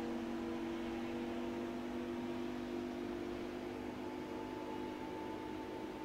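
Tugboat's Caterpillar D398 V12 diesel engine running steadily, a low droning hum over a faint hiss.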